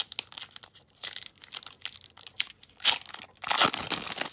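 Foil trading-card pack being torn open and crinkled in the hands: a run of irregular crackles and rips, loudest about three seconds in and again shortly after.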